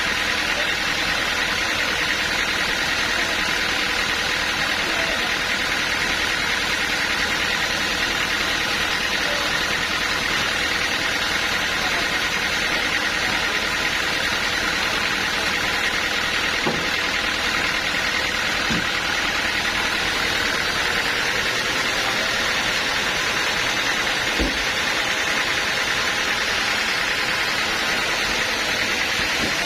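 Sawmill machinery running steadily with a constant engine-like drone, with a few faint knocks partway through.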